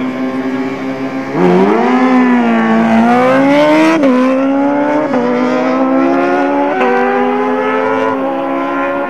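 A drag-racing car launches off the line about a second and a half in and accelerates hard away down the strip. Its engine note climbs and drops back at four upshifts.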